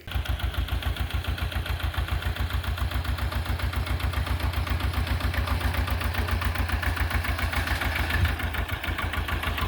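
Tractor backhoe's engine running steadily at idle, with an even, fast chugging pulse.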